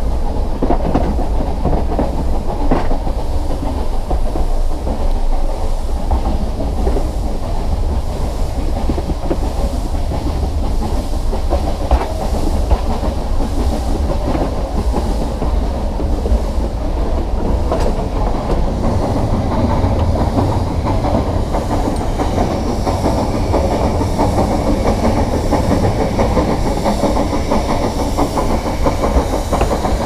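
Nilgiri Mountain Railway coach running along the metre-gauge track: a steady loud rumble with irregular clicks and clacks of the wheels over the rails. From a little past the middle a faint high hiss joins in.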